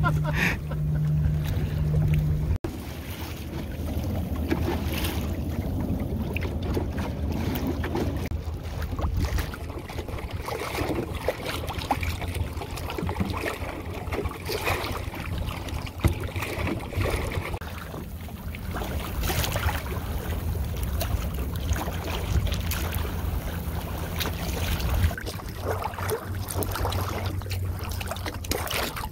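Wind buffeting the microphone over water lapping and splashing against the hull of a small sailing dinghy under way.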